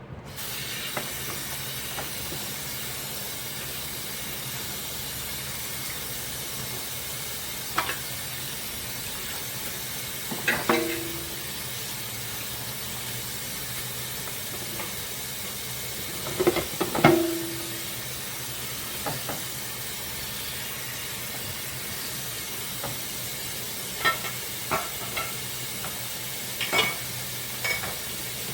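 Tap water running steadily into a sink, turned on right at the start, with dishes knocking and clinking now and then. Two louder clinks ring briefly, a third of the way through and again past halfway.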